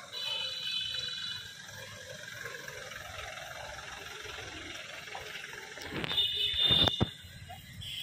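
Police vehicles driving out. A brief high, steady electronic tone sounds at the start and again about six seconds in. The loudest moment is a vehicle passing close by between six and seven seconds.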